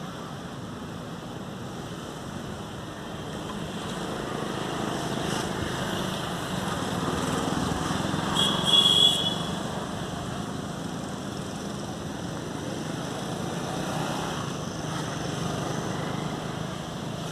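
A small engine running steadily, with a short high-pitched tone about nine seconds in.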